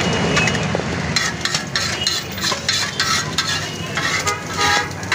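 Metal spatula scraping and clinking against a flat tawa griddle as an egg mixture is stirred and scooped onto a steel plate, with repeated quick strokes from about a second in, over a light frying sizzle.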